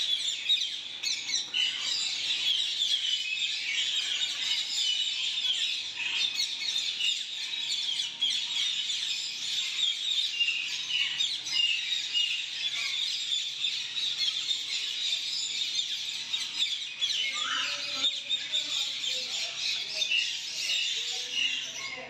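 Many caged birds chirping and calling together in an aviary: a dense, continuous chorus of short high chirps from numerous small birds.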